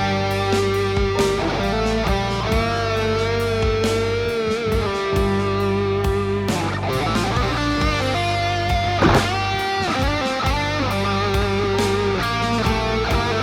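Background music: a rock track with electric guitar playing long, bending lead notes over a steady bass and drums.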